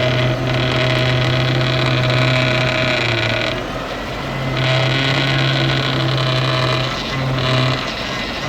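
Mercedes W210 E420's power steering pump making noise under steering input with the engine cold, over the engine's steady idle hum. The loud high-pitched rush drops out for about a second near the middle, then returns in stretches. The fluid level is correct but the fluid looks bad, and the cause is undiagnosed.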